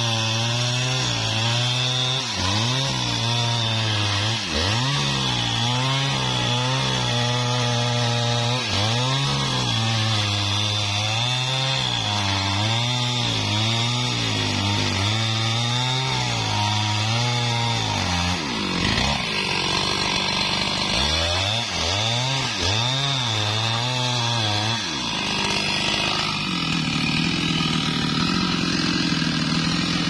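Large two-stroke chainsaw cutting into a hardwood mahogany trunk, running at high revs with its pitch sagging and recovering again and again as the chain bites and the load changes. About 25 seconds in it stops cutting and settles to a steadier, quieter running.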